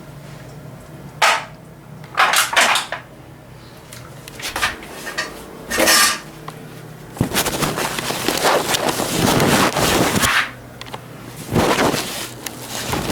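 Handling and washing an aluminium motorcycle cylinder head: short clatters and scrapes of metal on metal every second or two, then about three seconds of continuous rushing, scrubbing noise starting about seven seconds in, then two more clatters.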